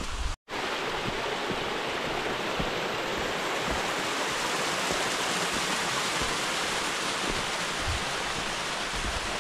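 Running water, a steady, even rush that holds unchanged for several seconds, broken only by a split-second dropout to silence about half a second in.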